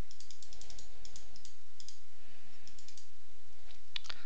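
Computer mouse clicking rapidly in short runs of quick, light clicks, over a steady low background hum.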